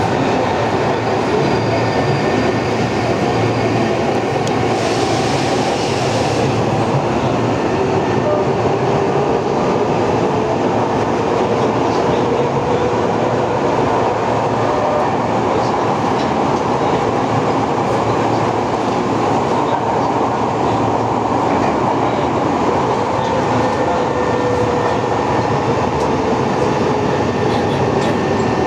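Interior running sound of a Tokyo Metro 03 series chopper-control subway car at speed: a steady rumble of wheels on rail with a hum that slowly drifts in pitch. A brief hiss comes about five seconds in.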